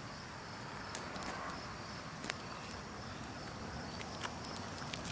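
Outdoor summer ambience: a steady high-pitched insect drone, with scattered light clicks and taps that come more often near the end.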